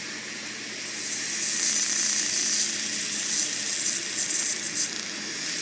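Biolase iPlus Waterlase erbium dental laser firing on gum tissue: a fast, dense crackle of laser pulses in a hissing air-water spray. It starts about half a second in and grows louder around a second in.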